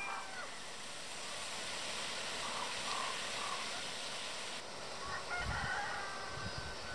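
A rooster crowing once, starting about five seconds in, over a steady outdoor hiss.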